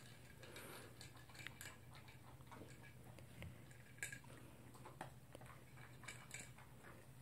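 A toy poodle eating from a plastic bowl, heard faintly: scattered small clicks of food and teeth against the bowl, and chewing, over a low steady hum.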